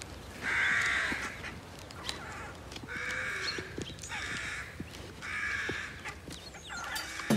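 A crow cawing about five times, harsh calls roughly a second apart, with faint clicks underneath.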